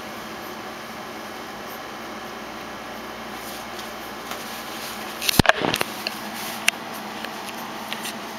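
Bulldog puppies at play: a short burst of bumps and scuffling about five seconds in, then a single sharp click about a second later, over a steady background hiss.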